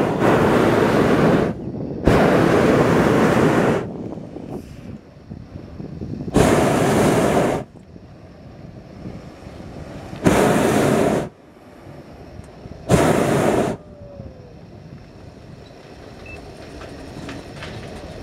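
Hot-air balloon's propane burner firing in five separate blasts of about one to two seconds each, an even roar, with quiet gaps between.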